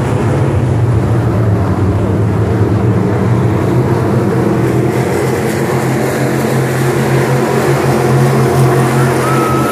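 Pack of Crate Sportsman dirt-track race cars running laps, their V8 engines making a loud, steady drone.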